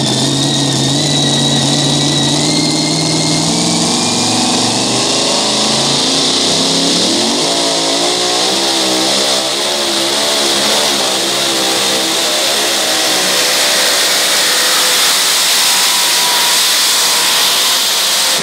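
Supercharged V8 of a two-wheel-drive pulling truck at full throttle, dragging a pulling sled. The engine note climbs over the first several seconds, then wavers up and down under load for the rest of the run.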